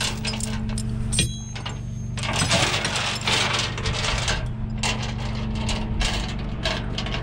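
Metal tow chain clinking and rattling as it is handled and hooked on, over a truck engine idling steadily underneath. A brief high squeal sounds about a second in.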